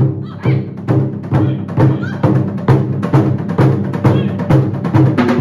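Wadaiko ensemble drumming: large Japanese taiko drums struck with wooden bachi in a driving rhythm, about two to three heavy beats a second, over a steady low drone.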